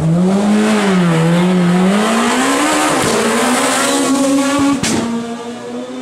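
Rally car engine at high revs, its note dipping and then climbing steadily over a few seconds. A sharp crack comes about five seconds in, and the engine fades after it.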